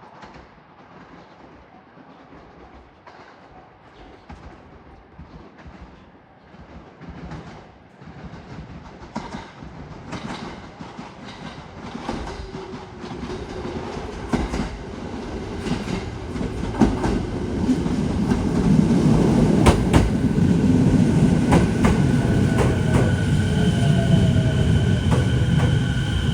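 JR 209 series electric commuter train approaching and pulling into a station platform, growing from faint to loud, with wheels clacking over rail joints. A steady high whine sets in near the end as it slows.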